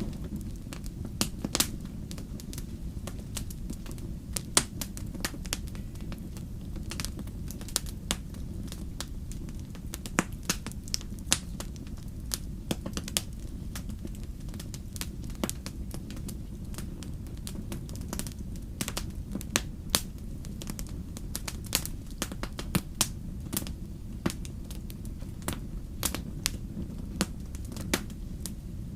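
Wood campfire crackling, with irregular sharp pops and snaps several times a second over a steady low rumble.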